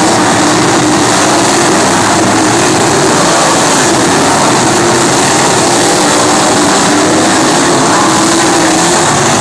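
A pack of winged sprint cars running laps on a dirt oval, several engines blending into one loud, continuous drone whose pitch rises and falls as the cars come off and into the turns.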